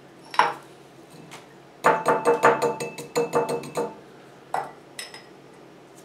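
A small metal tea strainer clinking against a glass jar: one clink, then a quick run of about a dozen ringing taps over two seconds, and two more clinks near the end.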